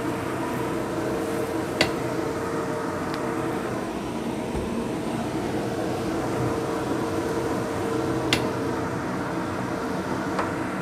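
Vegetables stir-fried in a hot nonstick wok with a spatula, over a steady machine hum; the spatula knocks sharply against the wok twice, about two seconds in and again near eight seconds.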